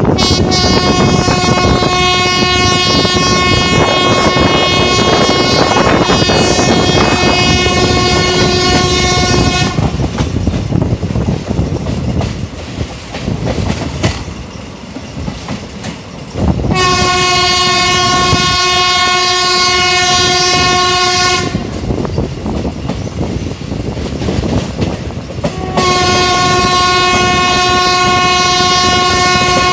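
A WAP-4 electric locomotive's horn sounds three long blasts on a single steady note: one of about nine and a half seconds, one of about five seconds, and a third starting near the end. Between and under them is the rumble and clatter of the train's wheels on the rails, heard from a window of a coach in the train.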